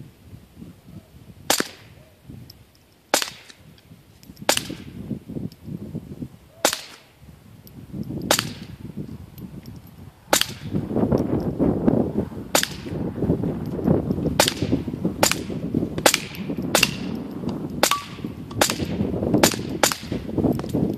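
Semi-automatic .22 LR rifle, an AR-15 with a Tactical Solutions .22 conversion upper, fired about sixteen times: single sharp cracks a couple of seconds apart at first, then quicker, about one a second or faster, in the second half.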